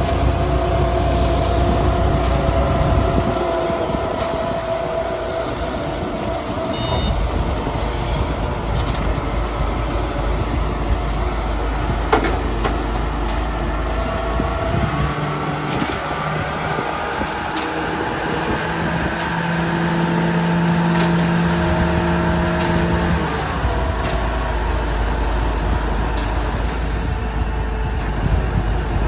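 Self-loading concrete mixer truck running, a steady machine drone whose tones come and go and shift as its speed changes, with a single sharp click about twelve seconds in.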